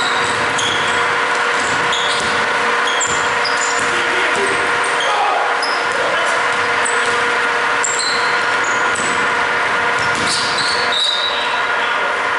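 Basketball players' sneakers squeaking on a hardwood court in many short, high chirps, with a few ball bounces, over a steady hum in the hall.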